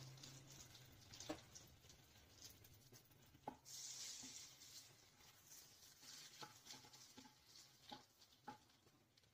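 Butter melting with a little oil in a hot pan, faintly sizzling and crackling, with a few small scattered pops.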